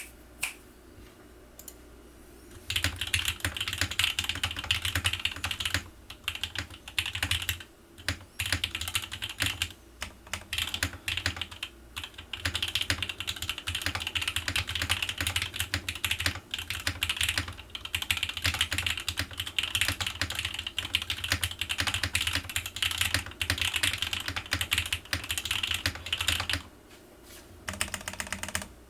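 Fast typing on an O-ring-mounted Geass60 mechanical keyboard with lubed Gateron Oil King linear switches on a polypropylene plate: dense keystroke clacks starting about three seconds in, broken by a few brief pauses.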